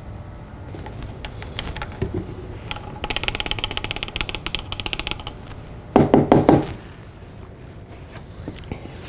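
Handling of a plastic engine-oil bottle while refilling a motorcycle: a fast run of small clicks for about two seconds, then four loud knocks in quick succession about six seconds in.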